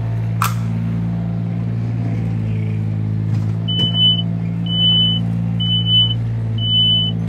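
Steady tractor engine running sound, with four short, evenly spaced high beeps of a reversing alarm in the second half as the toy tractor is backed up. A short click comes about half a second in.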